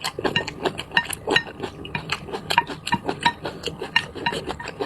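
Utensils clinking and scraping against a bowl of noodles while eating: rapid, irregular taps, each with a short ringing note from the bowl.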